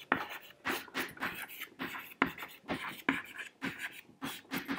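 Chalk writing on a blackboard: a run of short scratching and tapping strokes, about three a second, as words are written out.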